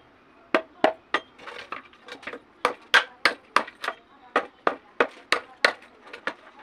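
A large knife chopping into a bamboo tube: sharp, dry strikes about three a second, following a short pause near the start.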